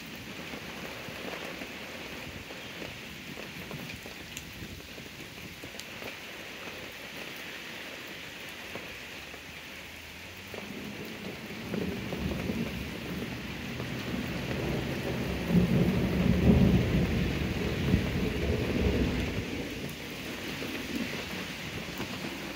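Steady rain falling on wet pavement, with a long roll of thunder that builds about halfway through, rumbles loudest a few seconds later and fades away before the end.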